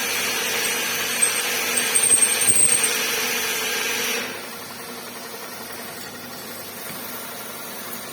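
Milling machine drilling, a steady cutting noise over the spindle's running tone, with a brief high squeal from the bit about two seconds in. A little past four seconds the cutting stops and the machine runs on more quietly.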